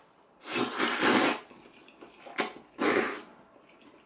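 Noodles slurped from a bowl: a long, loud slurp of about a second starting half a second in, then a brief click and a second, shorter slurp about three seconds in.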